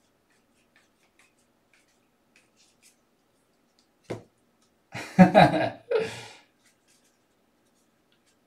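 A man's short wordless vocal sound, an exhale or murmur, about five seconds in, preceded by faint ticks of trading cards being flipped in hand and a short sharp sound just after four seconds.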